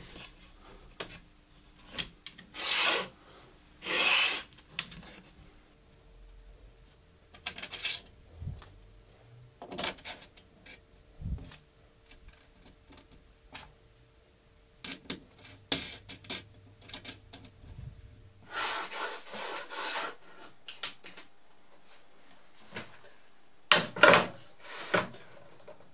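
Homemade MDF rail stops scraping as they slide along an aluminium tracksaw guide rail, with small clicks of a washer and wing nut being fitted on their bolt. The sound comes in a handful of short scrapes and clicks, with quiet gaps between them.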